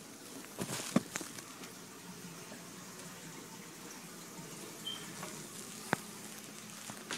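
Steady hiss and bubbling of aquarium water, from an air stone's bubble curtain and the filter, with two sharp clicks or knocks, one about a second in and one near six seconds.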